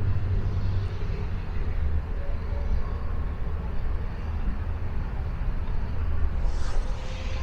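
Church bells playing a tune in the distance, heard as faint ringing notes that sound and fade, under a steady low rumble. A brief hiss comes near the end.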